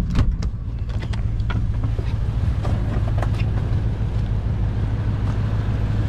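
Strong wind rushing and gusting, with a parked vehicle's engine idling low and steady underneath. A few sharp clicks and knocks in the first couple of seconds.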